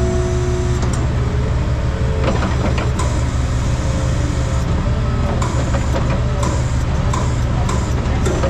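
An engine running with a steady low drone. A steady whine at the start stops about a second in, and scattered light clicks and knocks sound over it.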